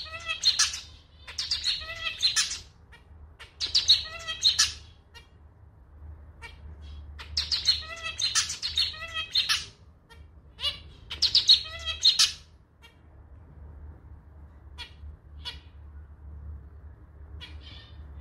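Male zebra finch singing, a rhythmic, nasal song that sounds like a small, slightly out-of-tune clarinet. Five song bouts come in the first twelve seconds, then a few short single calls, over a steady low hum.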